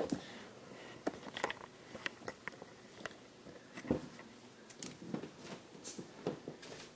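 Faint handling noises: scattered small clicks and taps, with one louder knock about four seconds in.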